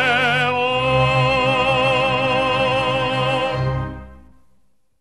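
Closing music: a singer holds the final note in an operatic style with wide vibrato over full accompaniment with a heavy bass, then the music fades out over the last second or so.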